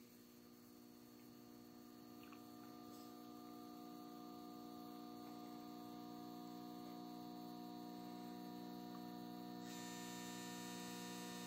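Faint mains hum from an analog 50-volt linear power supply, a buzz of several steady tones. It grows gradually louder through the first ten seconds or so as a DC electronic load draws more and more current from it, climbing toward 20 amps.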